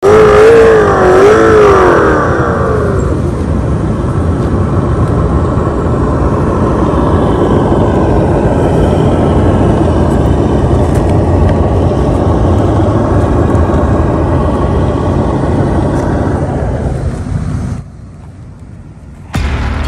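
A motor vehicle running. For the first few seconds a pitched note quickly rises and falls over and over, then it settles into a steady rumble that drops off abruptly near the end.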